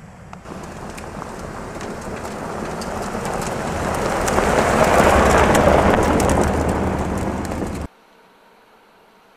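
A vehicle driving by on a road, its tyre and engine noise growing steadily louder as it approaches, then cutting off suddenly near the end.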